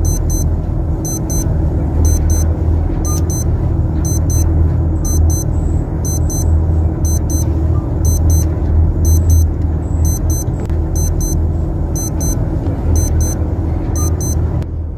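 Digital wristwatch alarm beeping in quick repeated pairs, stopping near the end, over the loud, steady low rumble of the tugboat's engines heard from inside a crew cabin.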